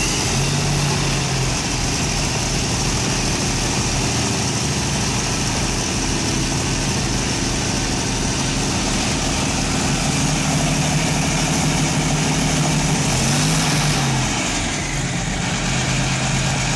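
V12 engine idling steadily during its first runs, with one brief rise and fall in engine speed about 13 seconds in.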